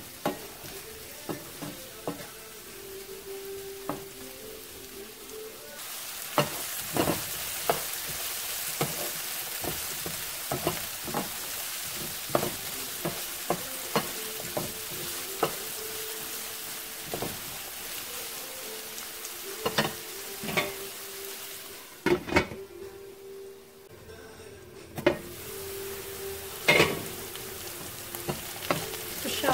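Sliced beets and onions sizzling in oil in a nonstick frying pan while a wooden spatula stirs them, with frequent sharp clicks and scrapes of the spatula against the pan. The sizzle grows louder about six seconds in and eases for a few seconds about three-quarters of the way through.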